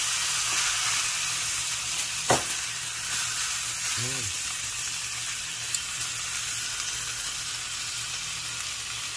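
Thick ribeye steak sizzling steadily on a hot ridged grill pan, with a single sharp click about two seconds in.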